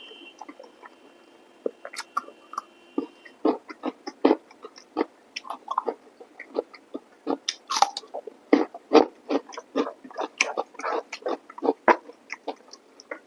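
Close-up mouth eating sounds of a person eating chicken masala curry with rice: wet chewing and lip smacks in irregular quick succession, sparse at first and coming several a second from about three seconds in.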